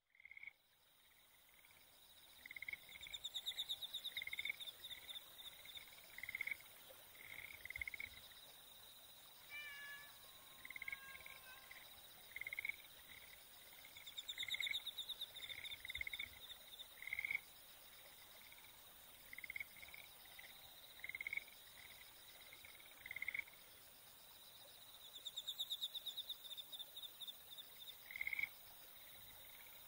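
Frogs and insects calling together: short calls repeating every half second or so over steady, high insect trilling, with a louder pulsed trill swelling about every eleven seconds.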